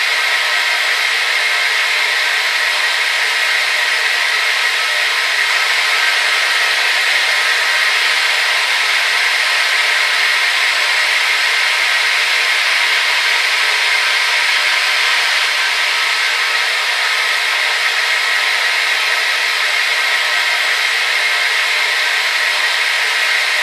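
Hair dryer running continuously with a steady, even rush of air and motor whine, strongest in the upper-middle range, without change.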